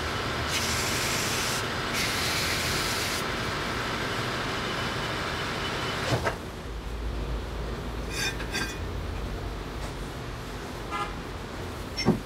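Machining on a metal lathe: a steady hiss for about six seconds that ends with a click, followed by light metallic clinks as the steel hydraulic-cylinder tube is taken out of the chuck, and a sharp metal knock near the end as the tube is set down.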